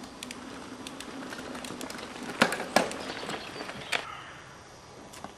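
Feet landing and scuffing on leaf-strewn earth during flips and jumps: a few sharp thuds, loudest about two and a half seconds in, over a steady outdoor hiss.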